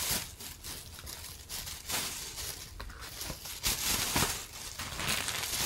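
Thin plastic shopping bag rustling and crinkling as it is handled, with irregular short crackles.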